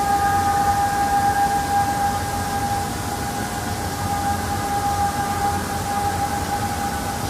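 A steady, unwavering droning tone with a few fainter higher overtones over a hiss of background noise: one of the mysterious hums heard in the sky.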